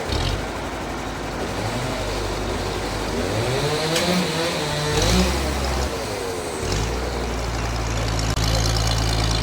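An engine or motor-driven machine running, its pitch rising and falling in the middle and steadying again for the last few seconds.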